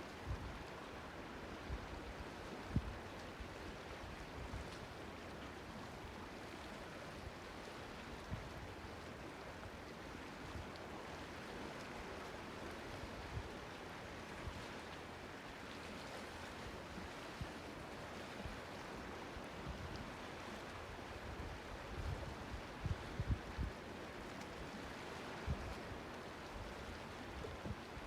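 Seawater washing and lapping at a small harbour, a steady rushing wash with occasional short low thumps.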